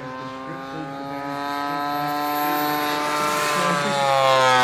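Large-scale radio-controlled model warbirds, an F9F Panther jet and a propeller-driven Bearcat, flying by: a steady engine drone that grows louder and drops in pitch as they pass close near the end.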